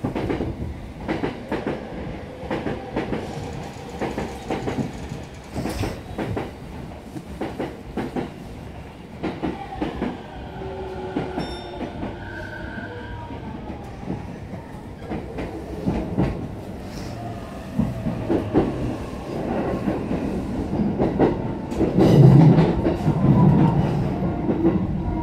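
Electric commuter train heard from inside, wheels clacking over rail joints while the traction motors whine with gliding pitch as the train pulls away and picks up speed.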